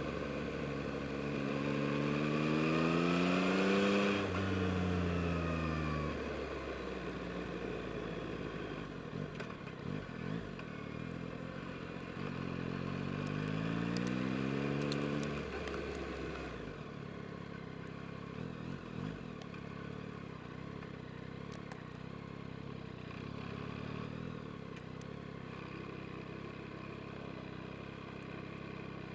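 2022 Yamaha MT-09 SP's three-cylinder engine accelerating twice, its pitch rising then falling away each time. From about seventeen seconds in it runs at low, steady revs.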